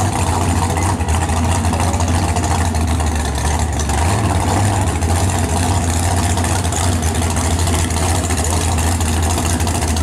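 Nitrous-equipped Ford Thunderbird drag car's engine idling at the starting line before its run, a loud, steady, deep rumble.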